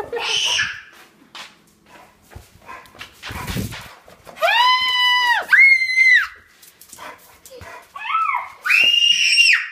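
A toddler's high-pitched shrieks, several in a row from about halfway through, each held at a steady pitch for under a second. A muffled thump comes a little before them.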